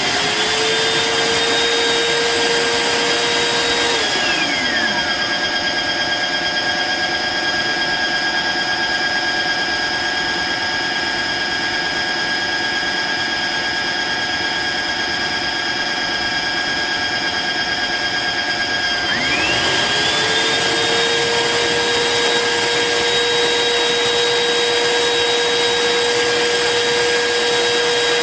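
Dreame G10 Combo wet-dry vacuum's motor running with a steady whine. About four seconds in it slows to a lower pitch, and about nineteen seconds in it speeds back up to the higher whine.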